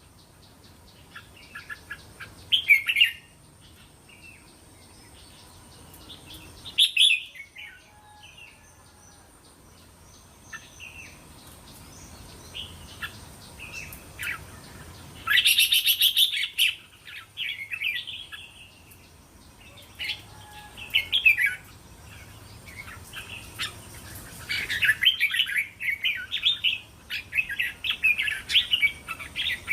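Red-whiskered bulbul song and chattering calls: short scattered phrases with louder bursts about 3, 7 and 16 seconds in, and a dense run of song over the last few seconds. A faint steady high tone sits under it.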